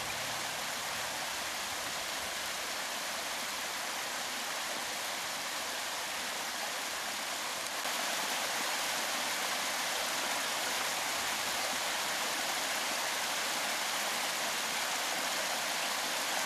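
Steady rushing of running water, a little louder from about eight seconds in.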